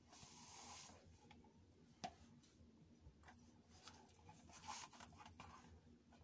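Near silence with faint clicks and light taps, like a plastic jelly flat knocking against a wooden floor as a foot dangles it. One sharper click comes about two seconds in, and there is a small cluster of clicks near the end.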